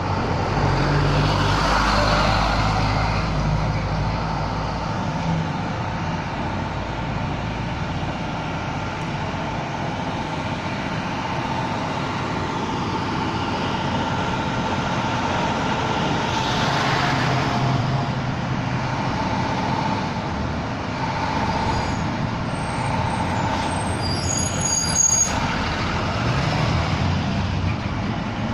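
Rear-loader garbage truck's engine running while the hydraulic packer cycles on cardboard boxes, with a steady whine throughout. The engine swells up under load a few times: about a second in, around the middle, and near the end. There is a short sharp clatter a few seconds before the end.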